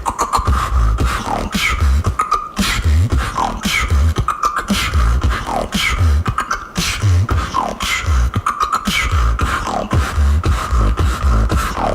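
Female beatboxer performing a routine: deep bass kicks and sharp snare-like clicks in a steady beat, with a falling whistle-like sweep repeating about every two seconds.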